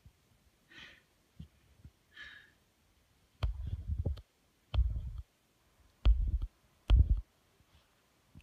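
A small puppy burying his toy in a couch, shoving a fleece blanket over it with his nose: two soft rustles, then four dull low thumps about a second apart as he pushes into the cushions.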